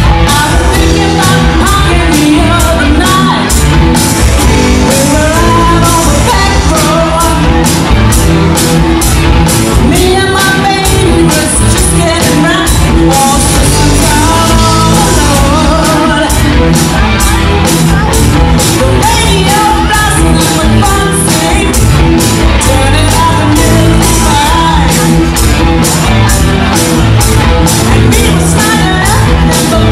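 Live rock band playing: a singer over electric guitars, bass and a drum kit, with a steady drum beat throughout.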